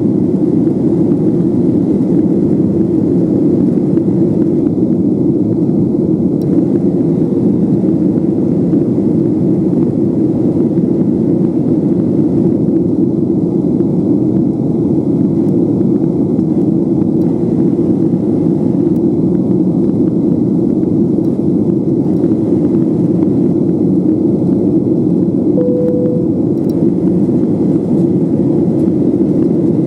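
Steady cabin noise inside a Boeing 737-800 in flight: a low, even rush of airflow and its CFM56-7B engines heard through the fuselage.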